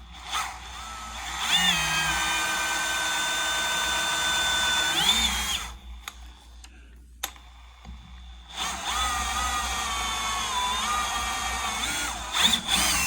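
Electric power drill running as it drills into a Delrin plastic bracket, in two runs of steady motor whine separated by a pause of a few seconds. The first run speeds up at the start, and in the second the pitch dips briefly as the bit bites.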